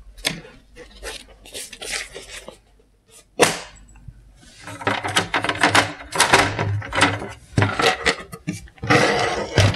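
Objects being shifted around on a work table, including a hard black plastic board being picked up and set down: a string of knocks, taps and rustles, with one sharp knock about three and a half seconds in and busier clatter in the second half.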